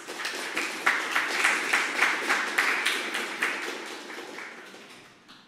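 Audience applauding at the end of a talk: the clapping builds within the first second and dies away over the last two seconds.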